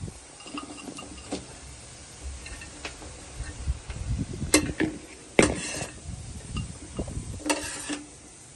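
Scattered clinks and knocks of kitchen utensils against a paella pan, some ringing briefly, the loudest about halfway through.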